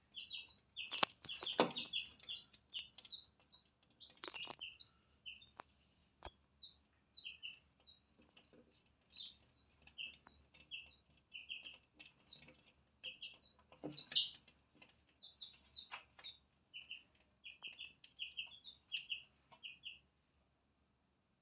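Chicks peeping, a rapid run of short high chirps several times a second, with a few sharp knocks and scrapes among them; the peeping stops near the end.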